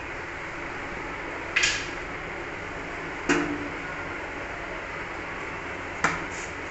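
A kitchen knife pressed down through a thin rolled-out dough sheet, its blade knocking on the board beneath three times: a little over a second in, at about three seconds, and near the end. The first knock is the loudest. A steady low hiss runs underneath.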